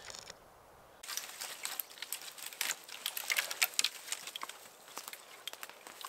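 Irregular rustling and crackling, a quick uneven run of small sharp clicks that starts abruptly about a second in.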